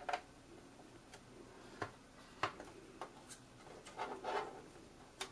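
Scattered light taps and clicks of small cardstock pieces and a bone folder against a plastic scoring board, with a short rustling scrape about four seconds in.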